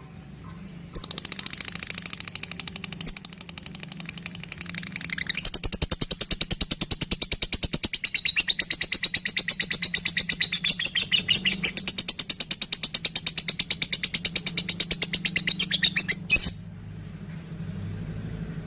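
Lovebird giving its long 'ngekek' chatter: a rapid, high, unbroken trill of repeated notes that starts about a second in, grows louder after a few seconds, and stops abruptly after about fifteen seconds.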